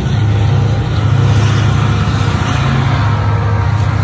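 Canadian Pacific diesel freight locomotive passing close by, a loud steady low engine drone over the noise of the train rolling past.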